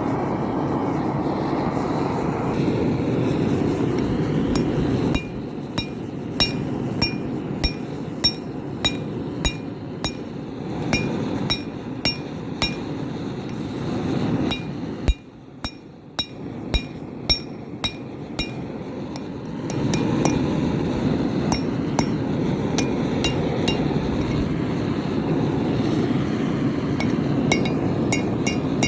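Hammer blows on a hot railroad spike on a steel anvil, ringing, about one to two a second in a run through the middle, with a quick run of lighter taps near the end. Between the runs the forge keeps up a steady roar.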